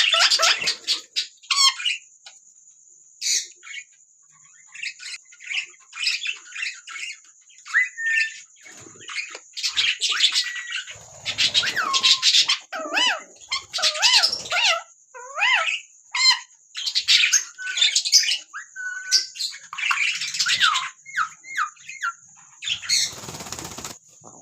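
Ringneck parrots giving repeated short squawks and chirps, with a quiet gap of a couple of seconds early on. A steady high whine runs underneath, and there is a brief rush of noise near the end.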